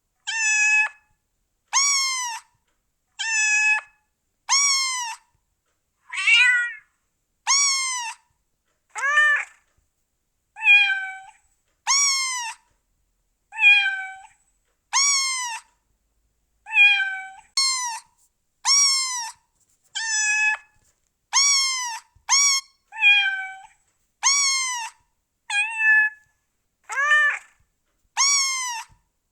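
Cat meows, one after another: about two dozen short, high meows, each rising and then falling in pitch, separated by clean silent gaps of about half a second.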